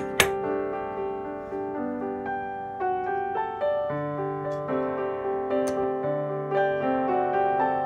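Background piano music, a gentle melody of sustained notes. A single sharp metallic clink of steel bar clamps being handled sounds just after the start.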